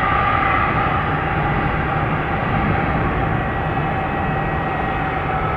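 MD-11F cargo trijet's jet engines running steadily at low thrust: a continuous rumble with a whine of several held tones, easing off slightly.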